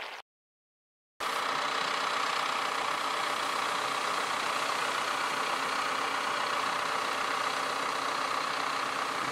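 John Deere 6125R tractor engine running steadily under load while pulling a four-furrow plough through the field. The sound cuts in after about a second of silence and then holds at an even level.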